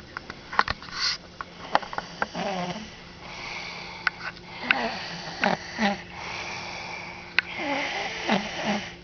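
A sleeping person snoring in uneven breaths, with sharp clicks scattered among them.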